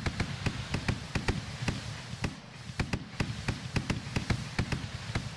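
Fireworks barrage firing shot after shot: a rapid string of launch thumps, about four a second, over a steady hiss of burning trails.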